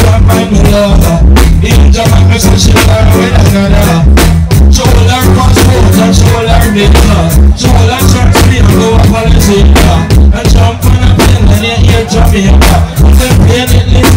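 Live reggae band playing a dancehall riddim through a loud PA, with heavy bass and a steady drum beat.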